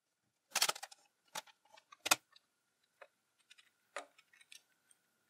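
Clicks and clacks of a 3D-printed plastic gear pliers being handled and worked, its printed gears and sliding parts knocking as they free up, the loudest clacks about half a second and two seconds in. A faint steady high whine sits behind.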